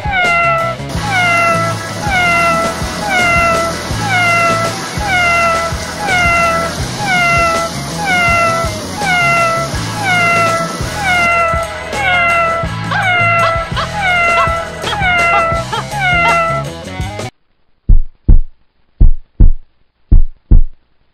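A domestic cat's short meow, falling in pitch, repeated at an even pace a little more than once a second over music with a pulsing beat. About 17 seconds in, the music and meows stop and deep thumps come in pairs, like a heartbeat.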